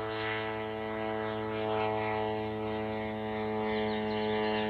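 Self-launching glider's pylon-mounted engine and propeller running under power, a steady droning hum that holds one pitch.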